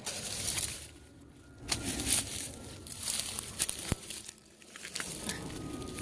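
Dry grass, leaves and plant stalks rustling and crackling as a gloved hand pushes and grips through the undergrowth, in irregular bursts. A single sharp click comes about four seconds in.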